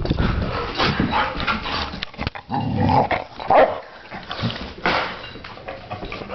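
A dog crying in short whiny bursts while licking her lips, giving a string of wet smacking 'mlep' sounds: her signal that she wants to play.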